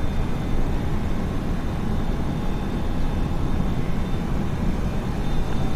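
Steady low rumble and hiss with a faint high-pitched whine held throughout: the background machinery hum of a large warehouse.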